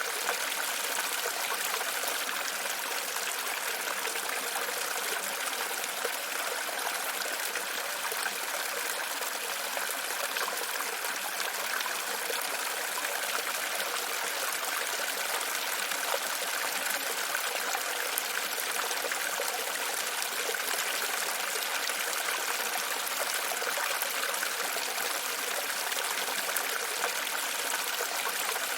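Running water, a steady trickling and splashing that holds unchanged throughout.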